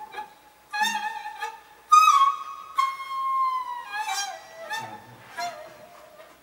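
Daegeum (Korean bamboo transverse flute) playing a slow solo line: sharply attacked notes, then a long held note that bends down in pitch and settles on lower notes.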